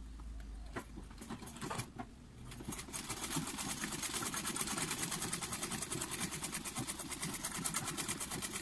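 Black domestic sewing machine stitching a fabric bag strap in place: a few light clicks as the fabric is set under the foot, then about three seconds in the machine starts running in a rapid, even stitching rhythm.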